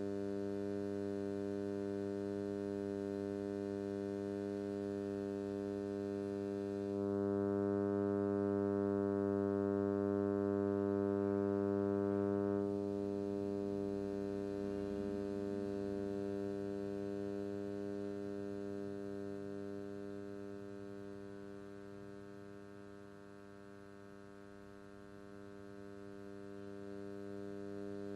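Electrical mains hum: a steady buzz with many evenly spaced overtones. It gets louder about seven seconds in, drops back near thirteen seconds, then fades and swells again near the end.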